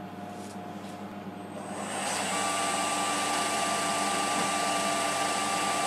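Emco PC50 CNC lathe spindle starting about a second and a half in, spinning the brass rod in the chuck up to speed, then running steadily with a constant whine.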